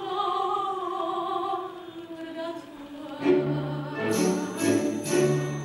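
Coloratura soprano holding a sung note that slides slowly down and fades about two seconds in. About three seconds in, accompaniment music starts with a regular pulse of low bass notes and bright high chiming notes.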